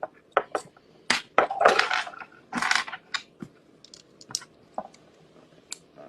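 Small hard pieces clicking and clattering as they are handled and sorted, an irregular string of sharp taps with a couple of louder rattles in the first three seconds.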